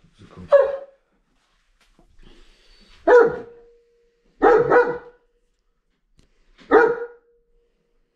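German Shepherd barking: loud single barks a couple of seconds apart, with a quick double bark in the middle, five in all, each leaving a short ringing tail. They are excited alert barks at a visitor's arrival.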